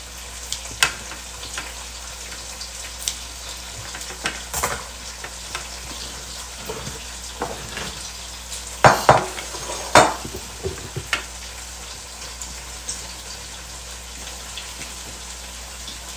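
Kitchen handling sounds over a steady faint hiss: kitchen scissors snipping soaked glass noodles, then a couple of sharp knocks about nine and ten seconds in as a large white bowl is handled on the stone counter.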